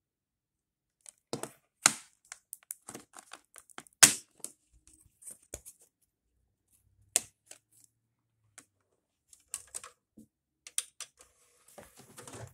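Plastic Blu-ray keep case being handled and opened, and the disc pressed off its centre hub: a run of sharp plastic clicks and snaps, the loudest about four seconds in, with light rustling near the end.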